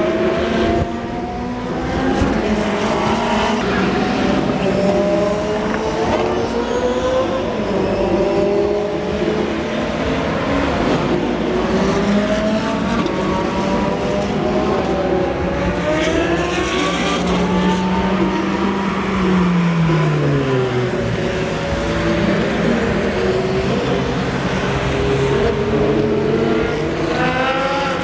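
Italian sports car engines, a Ferrari 458 Italia among them, running hard on a race circuit. Several cars pass in turn, their engine notes rising and falling as they accelerate and brake. A deep engine note falls in pitch about two-thirds of the way through.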